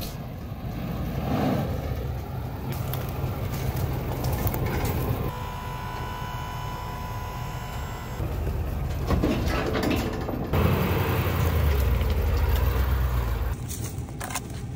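Ford Super Duty dually pickup's engine running with a steady low rumble as it tows a loaded gooseneck trailer, heard in several short segments that change abruptly.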